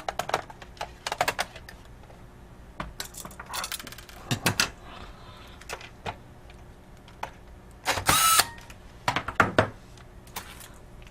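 Irregular small clicks and clatter of laptop parts being handled as the metal heat shield is set back in place over the board, with a louder brief scrape about eight seconds in.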